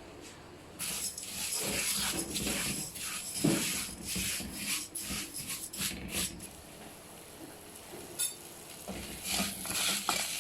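Vermicelli frying in oil in a pot, sizzling as it toasts, while a spoon stirs and scrapes against the pot. The sizzle starts about a second in.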